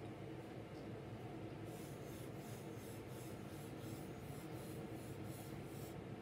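Graphite pencil scratching on paper as a corkscrew spiral is drawn in quick looping strokes. The strokes start about two seconds in and come at about three a second.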